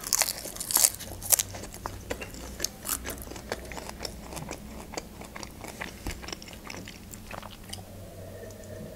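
Close-up mouth sounds of crunchy chewing on fresh vegetables, densest in the first second and a half and then slower, with a sip from a glass near the end.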